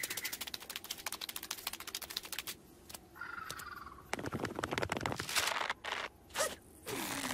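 Cartoon sound effects of a lizard scrabbling on a paper sheet: fast, dense scratching for the first two and a half seconds, a short wavering squeal a little after three seconds, then loud bursts of paper rustling and crumpling as the sheet folds up.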